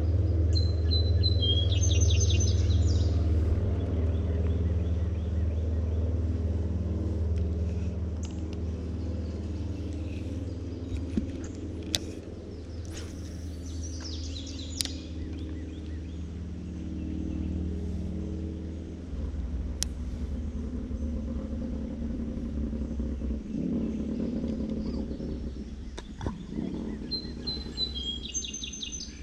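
Birds chirping in short clusters of quick high notes near the start, in the middle and near the end, over a louder low sustained background sound of held, shifting tones, most likely background music, which thins out after the middle.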